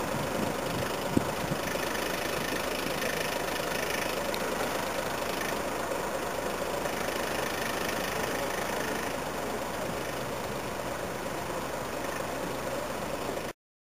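Military truck's diesel engine running at low revs while the truck is manoeuvred slowly on a railway flat wagon, with one sharp knock about a second in. The sound cuts off suddenly near the end.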